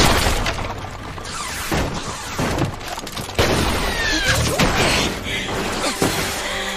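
Anime action sound effects: a run of crashes and impacts about a second apart, with falling whooshes between them, over background music.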